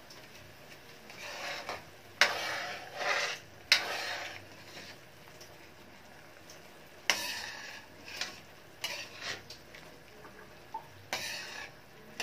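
Metal ladle stirring sauce and vegetables in a wok, scraping and clinking against the pan in three spells of stirring, with a few sharp clinks.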